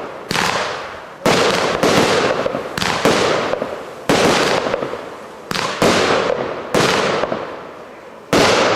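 Fireworks going off in a rapid string, about a dozen bangs in quick succession, one or two a second, each a sudden bang that fades away over most of a second.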